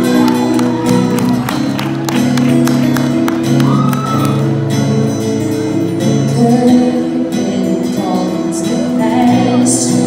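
A girl singing live, accompanied by two strummed acoustic guitars.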